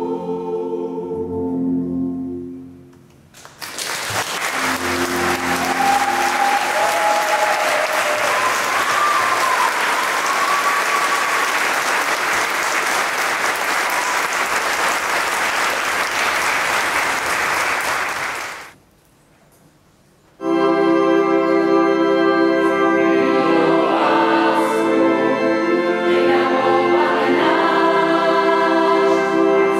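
Sustained organ chords end a piece, then an audience applauds for about fifteen seconds. After a short pause, steady organ chords open the next piece and a choir joins in a few seconds later.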